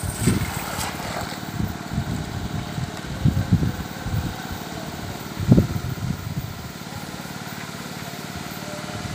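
Water splashing as a cast net is hauled in by a man wading in a river, brightest in the first second, with a few low sloshes later, over a steady engine-like drone.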